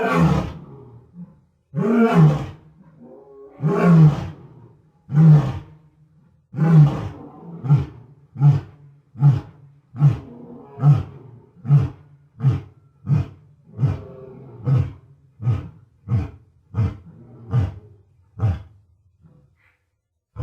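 Lion roaring in a full bout: about five long roars, then a run of shorter grunting roars, roughly one every 0.7 seconds, that grow weaker and die away near the end.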